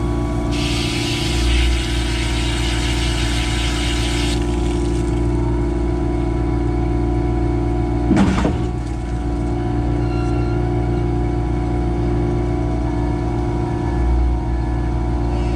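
Concrete pump truck's diesel engine running steadily, with a water hose spraying into the pump for about four seconds near the start and one sharp knock about halfway through.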